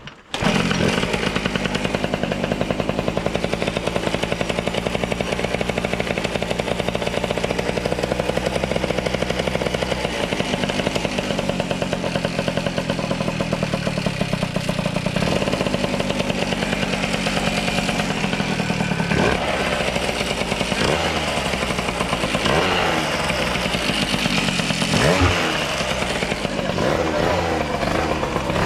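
Tuned two-stroke moped engine running hard at high revs, a steady buzzing drone whose pitch dips and climbs again several times in the second half.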